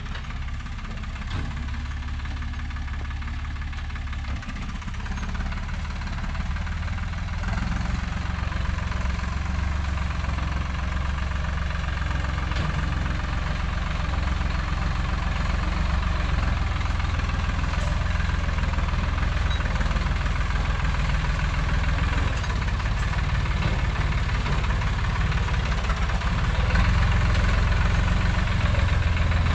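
Hattat 4x4 tractor's diesel engine running steadily, growing gradually louder through the stretch.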